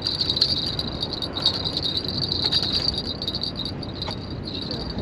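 Spinning fishing reel giving a steady, high-pitched, fast clicking buzz as line is reeled in; it weakens and stops near the end. Low wind rumble on the microphone underneath.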